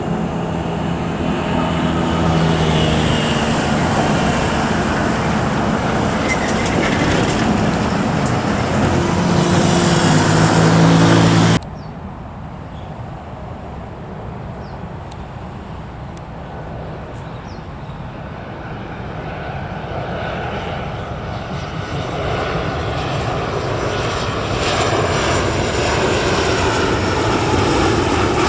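Loud jet noise from a Boeing 777 freighter's GE90 engines, with a low droning hum, cutting off abruptly about twelve seconds in. Then the quieter jet noise of a Boeing 737-8 with CFM LEAP-1B engines, building steadily until it is as loud again near the end.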